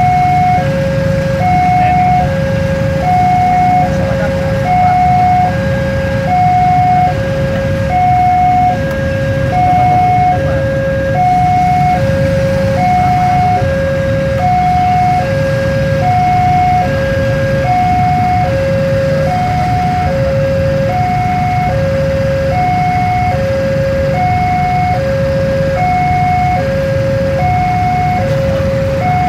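Electronic level-crossing warning alarm repeating a two-note high-low chime at an even pace, over the low rumble of a container freight train passing and motorcycles idling at the gates.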